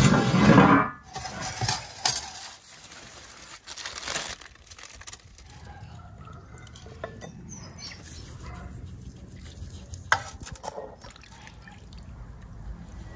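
Broth sloshing and dripping as tongs lift pieces of cooked lamb out of a large metal pan, then a ladle pouring broth over a plate. A loud burst of handling noise fills the first second, with a few light knocks later on.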